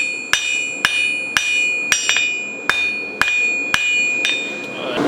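Hand hammer striking a steel bar on an anvil, about two blows a second, the anvil ringing between blows as the bar is tapered to a point. Near the end the blows stop and a steady rushing noise begins.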